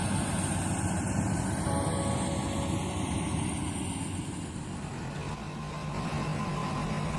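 Yanmar AW82V combine harvester's diesel engine running steadily, dipping slightly in loudness about two thirds of the way through.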